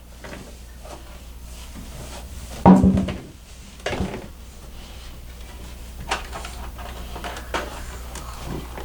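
Bathroom cabinet being opened and shut by a toddler: a few separate knocks and clacks, the loudest about three seconds in.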